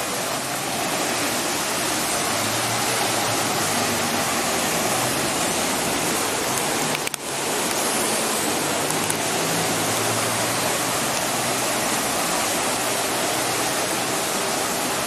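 Heavy rain with floodwater rushing along a street: a steady, dense rush of water noise. It briefly cuts out about seven seconds in.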